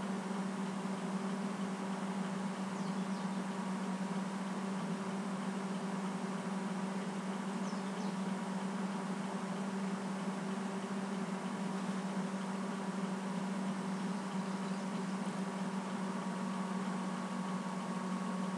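Steady room hum from running machinery: a constant low drone with a few faint higher tones over a light hiss, unchanging throughout.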